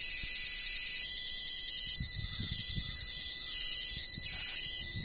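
Steady high-pitched electrical buzz and hiss from the spark gap of a running Don Smith-style high-voltage coil rig powered through an inverter, with thin whining tones held through it.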